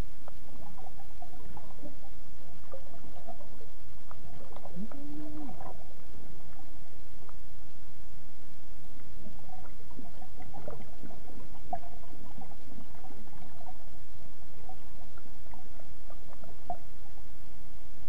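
Pond water heard through a submerged camera: a steady low rumble with many scattered small clicks and gurgles from rising air bubbles, and a brief muffled tone about five seconds in.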